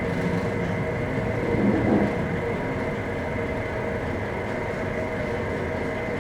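Steady drone of the Maersk Anglia's engines and machinery heard on board, a constant rumble with a few steady hum tones.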